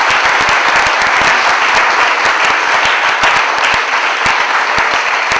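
Audience applauding, a steady, dense clapping of many hands.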